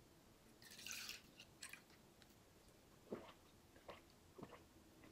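Makgeolli poured from a plastic bottle into a bowl, a brief splashing pour about a second in, followed by several quiet gulps as it is drunk from the bowl, between about three and four and a half seconds.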